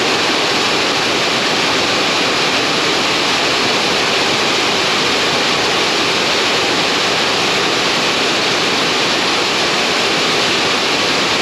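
Heavy rain drumming on an uninsulated metal roof: a loud, steady, overwhelming roar.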